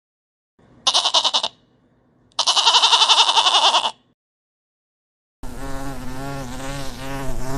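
Insects buzzing: two short, rapid, high trilling buzzes, then after a pause a lower, steady, slightly wavering drone starts about two-thirds of the way in, like a fly in flight.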